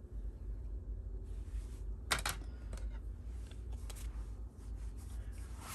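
Hard plastic PSA graded-card slabs being handled: light clicks and clacks as one slab is set down and another picked up, with a sharper clack about two seconds in and brief rustles.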